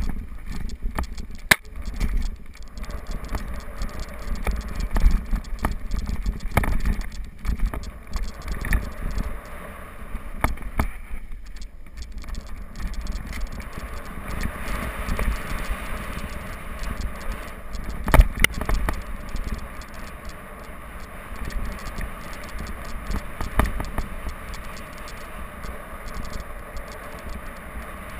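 Mountain bike descending a rocky dirt trail at speed: wind buffeting the microphone, tyres crunching and scraping over dirt and rock, and the bike rattling, with sharp knocks from hits over rocks, the hardest about two-thirds of the way through.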